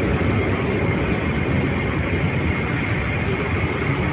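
Jet airliner engines running in flight: a steady, dense rumble with an even high whine at two pitches on top.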